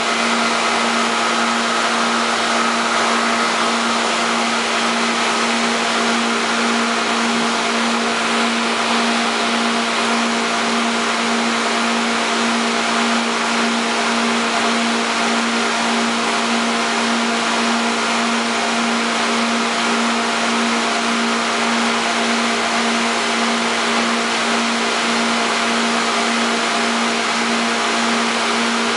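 Lobster warehouse pumps running steadily and loudly: an even rushing machine noise with a constant low hum.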